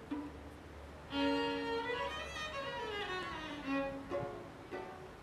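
Intro music: a violin melody of held notes, with a run of notes stepping downward in the middle.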